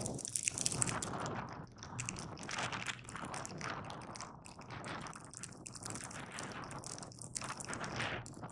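Skis hissing and scraping over packed snow through a run of turns, the sound swelling and dipping every second or two.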